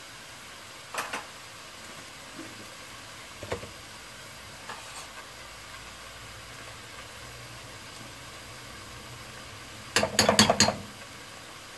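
Onions and tomatoes cooking in a pot on a gas stove with a faint, steady sizzle, and a few light clicks. About ten seconds in, a metal spoon clinks several times in quick succession against the pot as ginger-garlic paste is spooned in.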